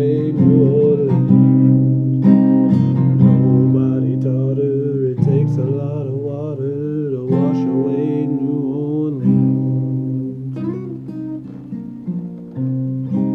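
Acoustic guitar, capoed, strummed and picked through the closing bars of a folk-country song, with a man's singing voice over it in places. The chords ring and the playing grows quieter toward the end.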